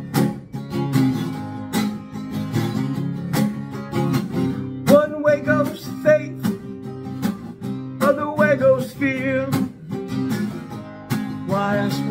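Acoustic guitar strummed in a steady rhythm, with a man's singing voice coming in briefly several times over the chords.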